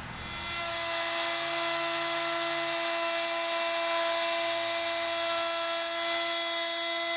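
Handheld router running at a steady high whine, its bit trimming a shallow bevel along the hardboard edge of a tabletop in a climb cut.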